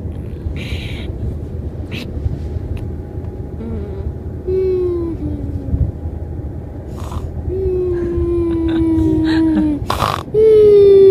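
Three long howl-like calls, each held near one pitch and sliding slightly down, the last and loudest beginning near the end, over a low rough noise. A sharp click comes just before the last call.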